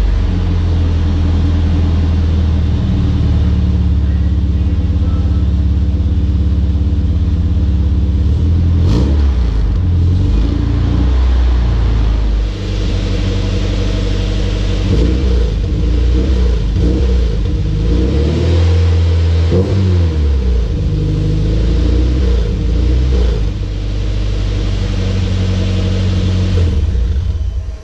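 Nissan 240SX (S14) engine running through a freshly fitted HKS exhaust: a steady low idle, then revved repeatedly from about halfway through, the pitch climbing and falling with each blip. It cuts off abruptly at the very end.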